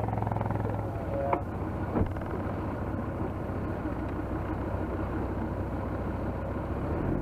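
Off-road vehicle engine idling steadily, with two short sharp knocks about a second and a half and two seconds in.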